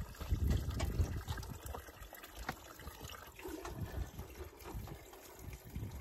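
Water trickling from a pipe spout and splashing into a stone fountain trough, with some low rumbling thumps in the first two seconds.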